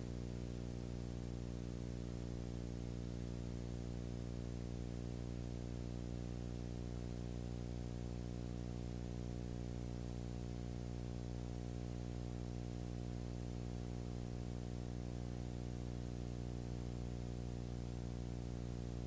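Steady electrical hum with a stack of overtones and a faint hiss, unchanging throughout, with no other sound: the noise floor of a silent Super 8 film transfer.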